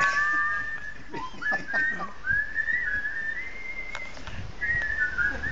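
Whistling: long, wavering high notes that slide up and down in small steps, at times two notes sounding together, with a few short breaks.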